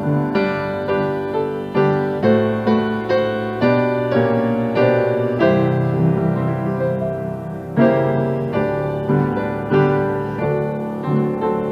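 Solo piano music: notes and chords struck one after another and left to ring out.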